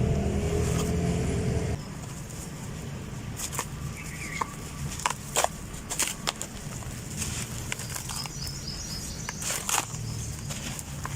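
Dry red dirt lumps crumbling, with about ten sharp, scattered crunches and cracks. A low rumble runs through the first two seconds and then stops abruptly.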